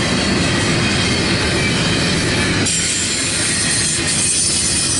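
Double-stack intermodal well cars of a CSX freight train rolling past, with steady loud wheel and rail noise. About halfway through, a higher ringing hiss rises over it.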